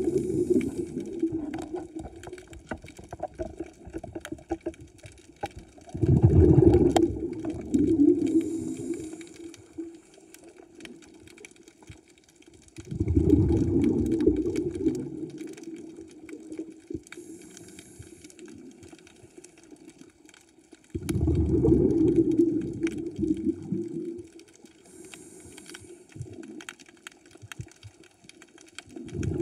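Scuba diver breathing through a regulator underwater. Each breath starts with a faint hiss on the inhale and ends in a loud bubbling rumble of exhaled air lasting two to three seconds. The cycle repeats about every eight seconds.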